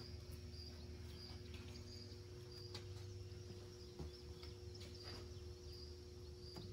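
Quiet room tone with a steady low hum. A cricket chirps faintly and evenly, about twice a second, and there are a few light clicks of hand tools.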